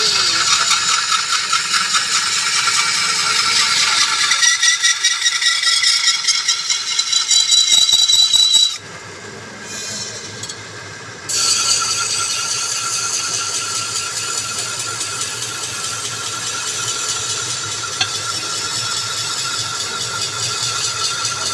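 A machine running with a fast, steady mechanical rattle. About nine seconds in it drops away for two or three seconds, then comes back and carries on evenly.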